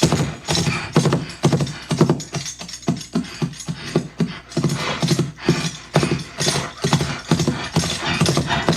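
Foley recreation of a galloping horse: rhythmic hoofbeats, about two to three a second, mixed with clinking metal tack and horse-like breathing.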